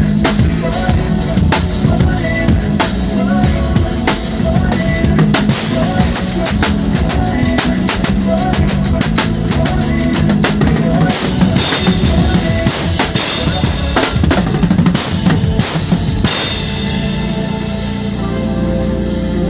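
Drum kit played hard and fast: bass drum, snare and rimshot hits in dense runs, with sustained low notes underneath.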